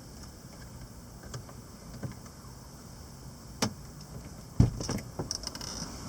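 Heavy rain with gusty wind, with a steady low rumble of wind on the microphone. A few sharp knocks and one loud thud come about four and a half seconds in.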